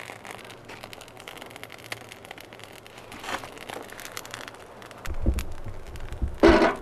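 Burning birch bark tinder crackling faintly with fine ticks. About five seconds in, handling noise starts, and near the end there is a loud clatter as the burning bark is set into a small metal wood stove.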